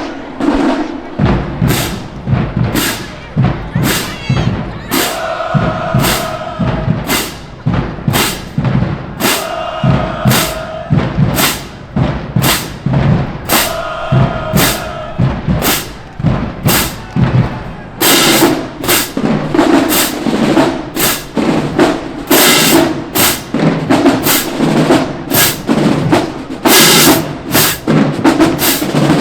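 HBCU marching band drumline playing a cadence at about two beats a second, with short held brass chords about every four seconds. About two-thirds of the way through, the full band comes in and the playing gets denser.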